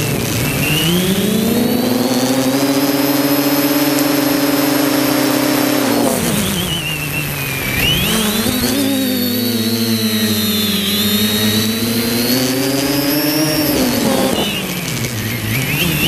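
Quadcopter's electric motors and propellers whining loudly, heard from the GoPro mounted on the craft. The pitch sags and climbs again several times as the throttle changes: once at the start, deeply about six seconds in, and again near the end.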